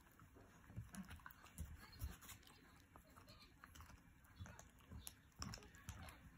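Miniature schnauzer gnawing on a chew held in its paws: faint, irregular clicks and crunches of teeth, with a few soft thumps.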